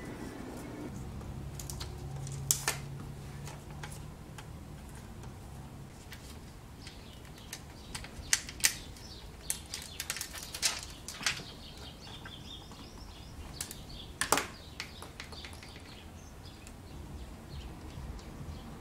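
Thin plastic film crinkling and clicking as the liner of a waterproof screen adhesive tape is handled and peeled off. Scattered sharp ticks and crackles, with a loud click a little after two seconds, a run of crackles around the middle, and another loud click about three-quarters of the way through.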